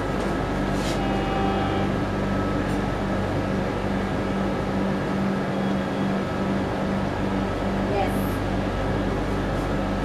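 Diesel locomotive engine running with a steady low drone that holds even throughout.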